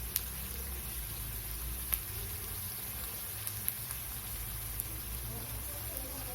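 Peanut and potato cutlets shallow-frying in a little oil in a pan: a steady sizzle with a few small pops.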